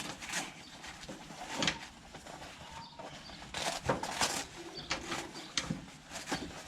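Rustling and scattered light knocks from a fabric tool roll bag and the tools in its pouches being handled and moved about.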